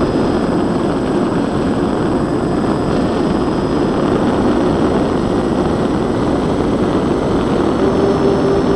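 Onboard sound of a scratch-built twin-motor Twinsurfer model plane in flight: steady rushing wind noise over the on-board camera mic, with the hum of its propellers. Near the end a steady propeller tone stands out more clearly.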